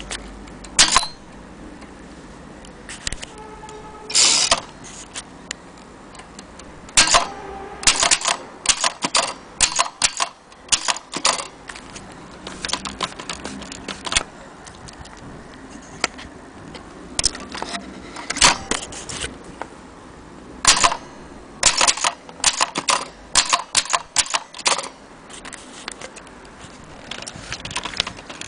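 A 1930 Corona portable typewriter being typed on: its keys strike in irregular runs of sharp clacks with short pauses between them. A brief ringing tone comes about four seconds in.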